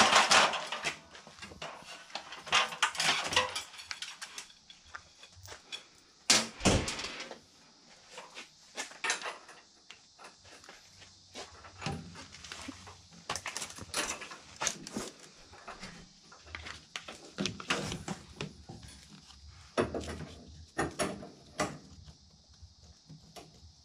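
Handling noises from work on a sheet-metal furnace cabinet: irregular clicks, knocks and scrapes as small parts and fittings are moved and set against the metal, with a sharp knock about six seconds in.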